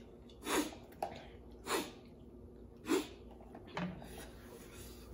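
About five short, sharp sucking breaths and slurps, unevenly spaced, from a person eating extremely spicy noodles.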